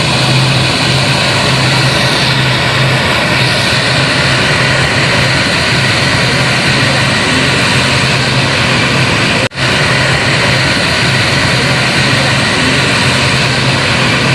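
Aircraft engines running at an airport: a loud, steady noise with a low hum. It drops out for an instant about two-thirds of the way through, then carries on unchanged.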